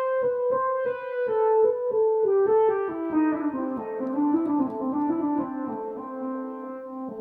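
Yamaha MODX8 synthesizer being played with a piano-like keyboard sound. A quick run of notes steps downward over a held tone, then settles into sustained notes that move up and down.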